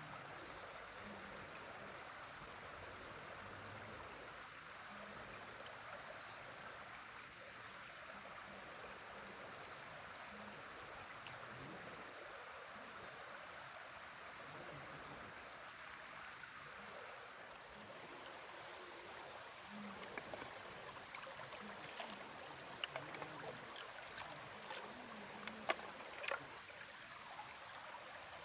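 Steady rush of flowing water, with a scattering of sharp clicks and taps in the last ten seconds.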